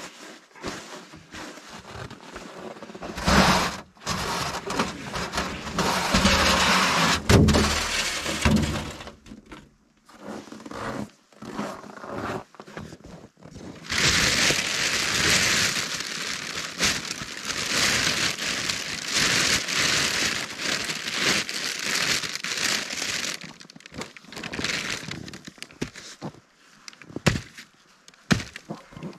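Clear plastic bag crinkling and rustling as it is handled, in two long stretches with short crackles and knocks between them.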